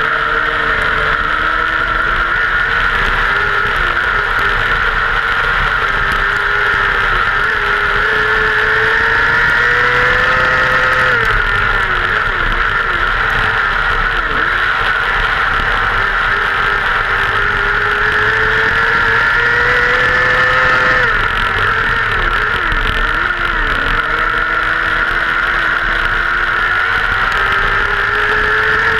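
Dirt-track race car engine at racing speed, heard from inside the cockpit. The revs climb for several seconds, then drop and stutter twice, as the throttle is lifted going into the turns and opened again down the straights.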